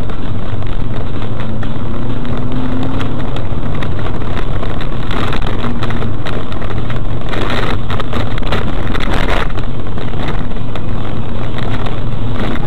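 Vehicle driving noise picked up by a dashcam: steady engine and road rumble with wind on the microphone, loud and dense, with a few brief louder rushes of noise along the way.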